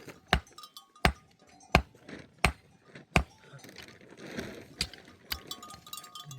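Repeated heavy blows of a tool striking, about one every 0.7 seconds, seven in a row, then a pause and two weaker blows. Livestock bells tinkle faintly near the end.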